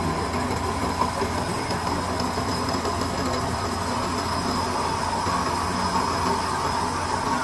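A machine running steadily, giving a continuous dense noise with a faint high whine and a low hum underneath.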